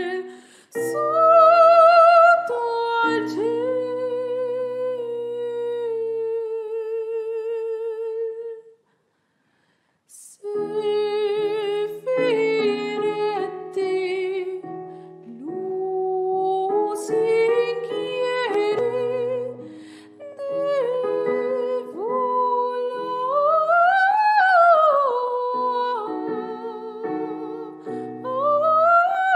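A soprano sings a classical art song with vibrato over a piano accompaniment. The music stops completely for about a second and a half near the middle, then voice and piano come back in, the voice climbing to a high note and falling away near the end.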